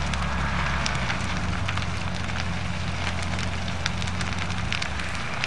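A fully involved house fire crackling, with frequent sharp pops and snaps of burning wood over a steady low rumble.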